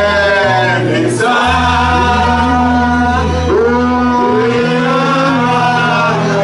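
A man singing into a microphone, backed by a live band with keyboard and held bass notes that change pitch every second or two.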